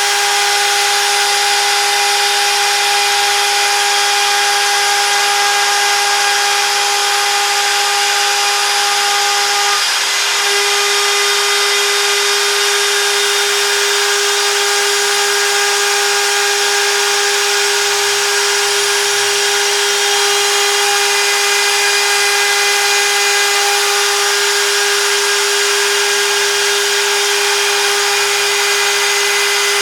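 CNC router spindle running with a steady high whine over a hissing cutting noise, which falters briefly about ten seconds in.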